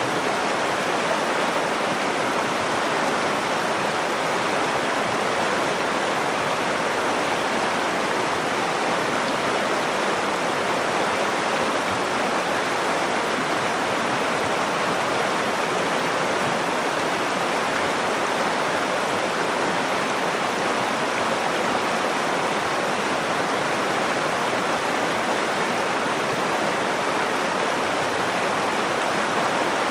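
Nakdong River water flowing with a steady, unbroken rushing sound.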